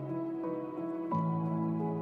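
Soft new-age background music with sustained notes that change every half second or so.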